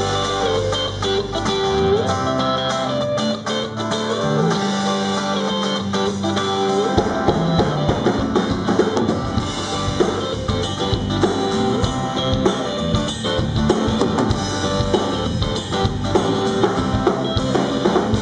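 Live band playing an instrumental intro: electric and acoustic guitars over bass guitar and a drum kit. The beat fills out about seven seconds in.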